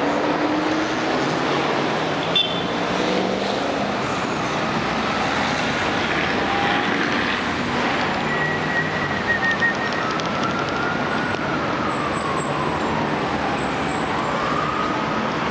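Steady city road traffic noise, with a siren wailing, slowly rising and falling in pitch, through the second half.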